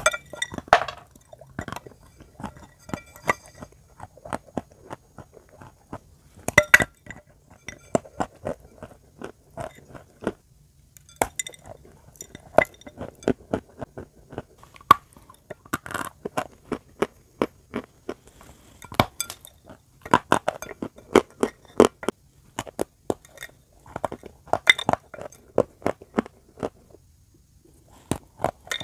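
Chalk coated in clay paste being bitten and chewed close to the microphone: dense, irregular crisp crunches and snaps, with brittle pieces clinking against the bowl as they are handled.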